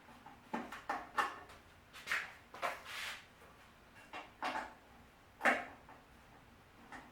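Irregular knocks, clinks and scrapes of metal parts and hand tools being handled while a part of a Shopsmith woodworking machine is unscrewed, about eight short sounds spread unevenly.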